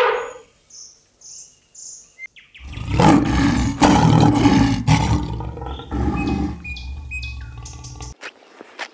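Birds chirping in short high calls, then from about two and a half seconds in a lion roaring and growling in deep, rough pulses, cutting off sharply about a second before the end.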